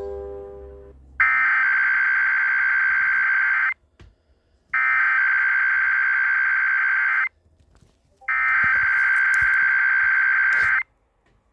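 Emergency Alert System SAME header: three bursts of digital data tones, each about two and a half seconds long with about a second's pause between, opening a Required Weekly Test. A ringing tone dies away in the first second.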